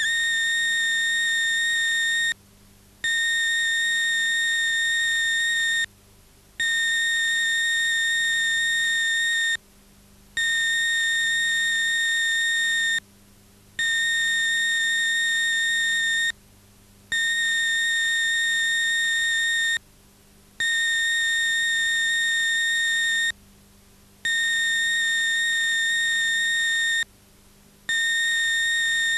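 Television closedown signal: a loud, steady, high electronic beep, sounding for about three seconds at a time with short gaps and repeating about every three and a half seconds. It is the tone that goes with the end-of-transmission card, telling viewers that the broadcast is over and to switch off the set.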